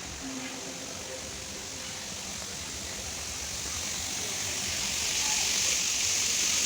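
Steady rush of falling water, growing louder over the second half.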